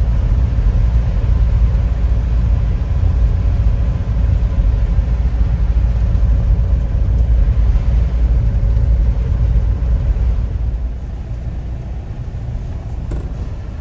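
Steady low rumble of a motor vehicle on the move, easing off slightly near the end.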